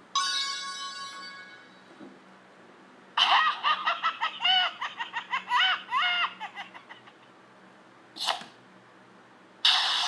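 Added comedy sound effects: a chime-like ding at the start that fades over about a second and a half, then a high-pitched giggling laugh for about four seconds, a short sharp burst, and a hissing burst near the end.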